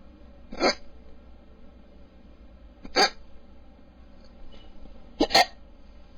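A person hiccupping: one sharp hiccup about half a second in, another about three seconds in, and a quick double hiccup past five seconds. It is a stubborn bout of hiccups that won't quit.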